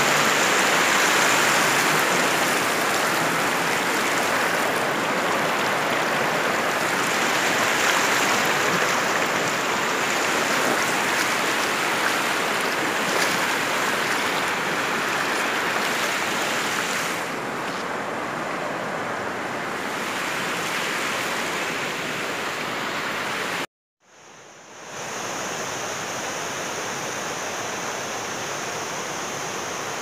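A fast, shallow mountain river rushing over rocks: a steady, loud rush of water. It cuts off abruptly about three-quarters of the way through, and after a moment of silence a fainter steady hiss takes over.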